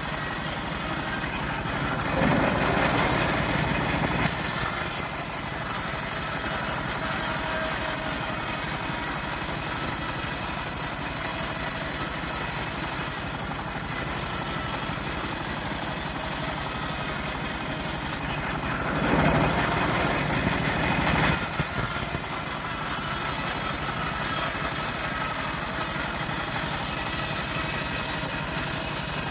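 Stihl MS 381 two-stroke chainsaw running steadily, swelling louder twice: about two seconds in and again near twenty seconds.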